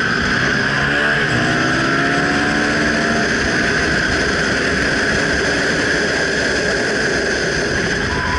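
Onboard sound of a Suzuki DRZ400SM supermoto's single-cylinder four-stroke engine under way on track, its pitch rising and falling with the throttle over the first few seconds and then running steadily, over a constant rush of wind noise.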